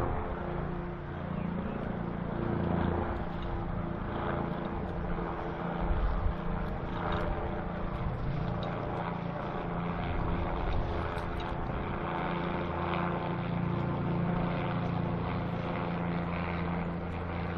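Steady drone of an aircraft engine overhead, with wind gusting on the microphone.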